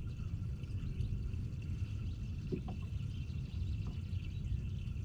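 Steady low rumbling background noise with faint high chirps over it.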